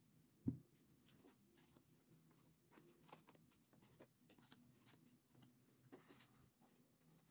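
Faint rustling and light clicks of paper cards being handled and slid in and out of a paper pocket, with one dull thump about half a second in.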